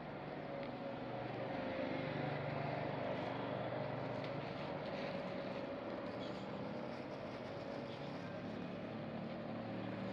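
Steady motor hum holding a constant pitch.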